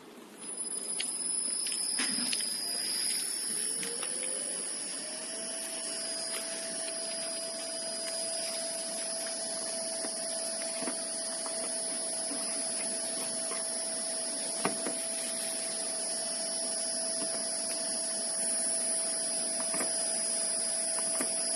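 Small electric motor driven by a Shihlin SE2 variable-frequency drive starting and running: a high steady whine begins about half a second in, and a lower tone rises in pitch and levels off about five seconds in as the motor comes up to speed, then holds steady. A few light clicks from the drive's keypad buttons.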